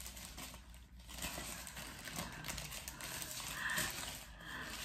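Soft white protective wrapping rustling and crinkling as a handheld gimbal is pulled out of it by hand.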